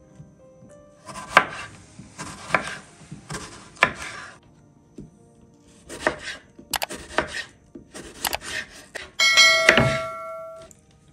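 Kitchen knife cutting through a crisp apple onto a wooden cutting board: a series of separate crunchy cuts, each ending in a knock on the board. Near the end a short ringing chime, the loudest sound here, comes from a subscribe-button sound effect.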